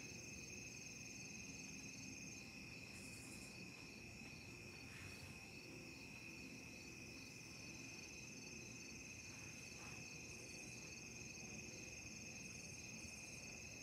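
Faint, steady high-pitched trilling of insects in the background, with no other clear sound.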